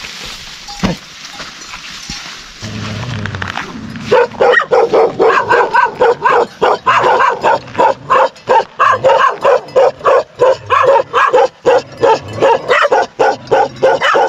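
A dog barking over and over, about three barks a second, starting about four seconds in after a few seconds of steady hiss.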